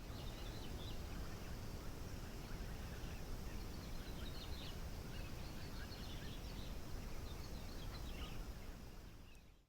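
Steady background noise with a low rumble, with small birds chirping now and then.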